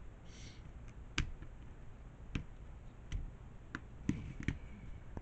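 Plastic cabinet parts clicking and tapping as a plastic trim strip is pressed into place along a panel edge: about half a dozen sharp, separate clicks, with a short scrape near the start.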